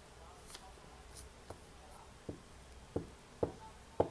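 Hands handling paper petals and a glue stick on a tabletop: faint paper handling, then from about two seconds in a run of short light taps, roughly one every two-thirds of a second, getting louder.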